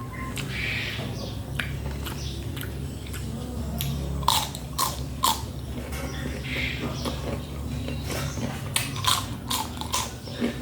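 Close-up chewing and crunching of fresh vegetables, with sharp crunchy bites in two clusters, a few seconds in and near the end, over a steady low hum.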